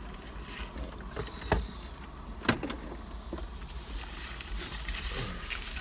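Low steady rumble inside a car cabin, with a brief rustle a little over a second in and two sharp clicks about a second apart.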